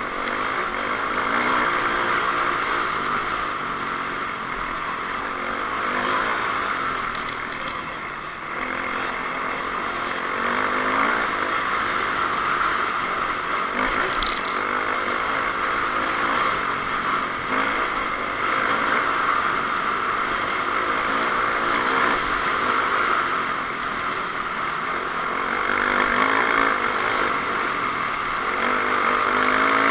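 Dirt bike engine running under throttle, heard from a camera on the bike, its revs rising and falling as it rides rough desert trail, under a steady hiss. A few sharp clicks come about seven seconds in, and a short crack about fourteen seconds in.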